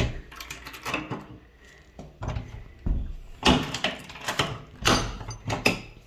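Irregular knocks, bumps and rustling clatter in a small room, loudest in the second half. This is the kind of noise made by walking on a wooden floor and handling a door.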